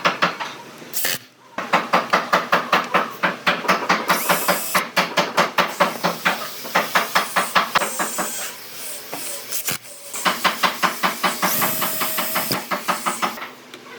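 Rapid repeated strokes of a hand tool working wood, about four or five a second, in runs broken by short pauses.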